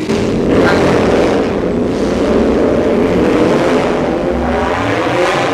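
Loud motorcycle engine noise from the street outside, coming in suddenly and staying loud throughout.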